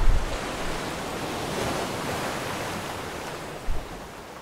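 Rough sea rushing and breaking past a sailing yacht's hull in a strong wind of about 22 knots, with wind buffeting the microphone in low bumps at the start and again near the end. The rushing eases off toward the end.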